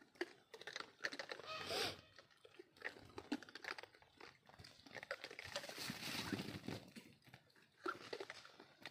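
Gray langurs feeding on scattered grain: faint, scattered crunching and rustling, with a louder rustling hiss for about two seconds past the middle.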